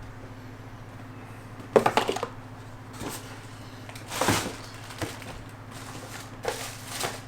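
Handling noises of unboxing: a quick rattle of knocks about two seconds in, a longer rustle around four seconds and a few light taps and clicks as packaging and accessories are moved. A steady low electrical hum runs underneath.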